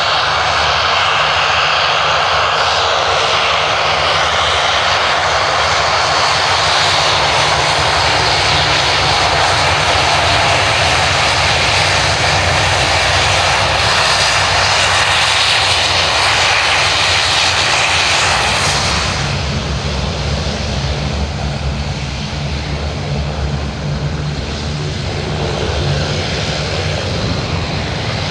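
Fokker 50's twin Pratt & Whitney Canada turboprop engines running steadily as the airliner rolls past on the ground: a loud propeller drone with a hiss on top. About two-thirds of the way through the hiss falls away, leaving a lower drone.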